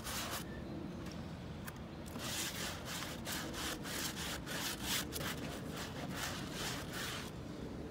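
Stiff-bristle scrub brush scrubbing wet, weathered wooden fence boards in repeated back-and-forth strokes, agitating a cleaning solution into the wood. The strokes pause briefly about half a second in, then carry on.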